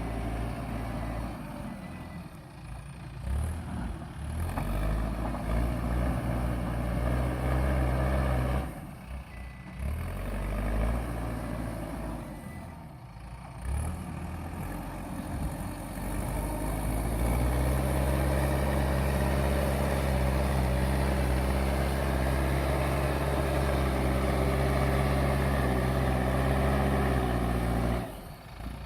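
JCB backhoe loader's diesel engine working, its revs rising and falling with brief drops a few times. For roughly the last twelve seconds it is held at high, steady revs under load.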